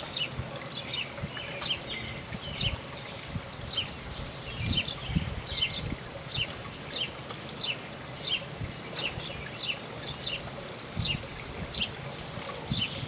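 A small bird singing over and over, short high chirps of two quick notes about two to three times a second, over irregular low rumbling and rustling.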